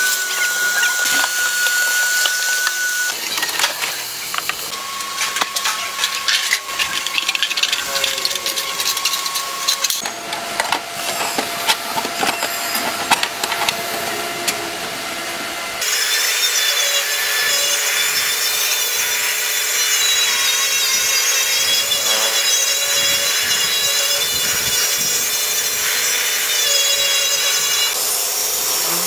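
Handheld power tools working on bare car-body steel: a rotary sander's abrasive disc whines and scrapes against the metal. The sound changes abruptly several times as the work cuts from one tool pass to another.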